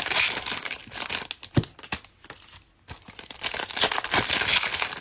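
Foil wrappers of trading-card packs being crinkled and torn open, in two spells with a short pause between them and a single knock in the first spell.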